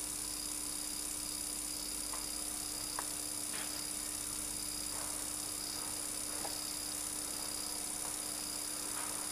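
Steady electrical hum and hiss with a faint high whine, the background noise of a home camcorder recording, broken by a few faint scattered ticks.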